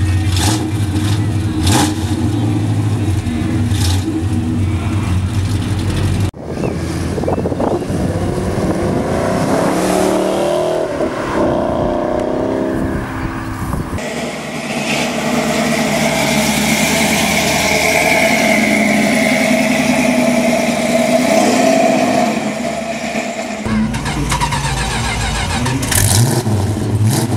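American V8 engines in a string of short clips. A Chevrolet Chevelle idles low with a few quick throttle blips. Then V8 engines rev up and down and run on. Near the end a Dodge Charger's V8 is idling.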